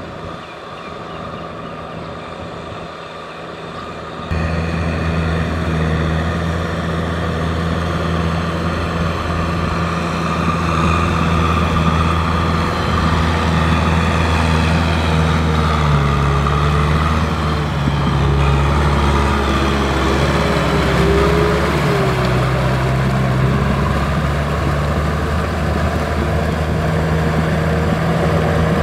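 Kubota M6040 tractor's four-cylinder diesel engine running steadily under load while pulling a rotary tiller through a flooded rice paddy. It gets abruptly louder about four seconds in, and the engine note shifts a little in the middle.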